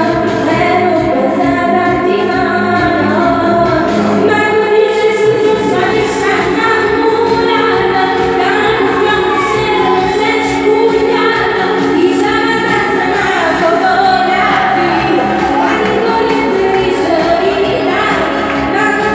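A woman singing a song live into a microphone over instrumental backing music.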